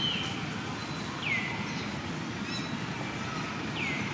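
Baby monkey crying: short high calls, each sliding down in pitch, repeated about every two and a half seconds over a steady low rumble.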